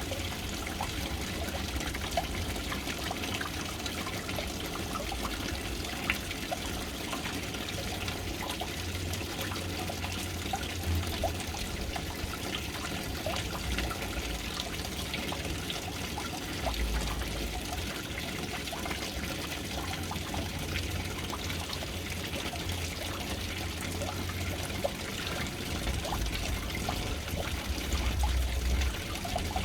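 Water pouring and trickling steadily into a household water storage tank, with many small splashes through the stream and patches of low rumble.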